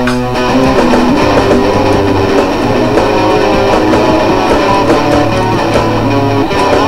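Rock music led by guitar chords over a steady bass line.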